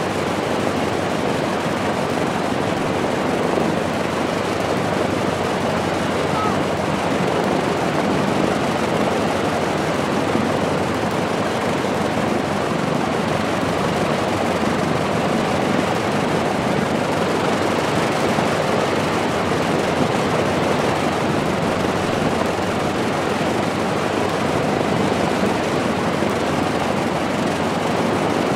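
The twin liquid-cooled Allison V-1710 V-12 engines of a Lockheed P-38F Lightning running steadily on the ground, both propellers turning.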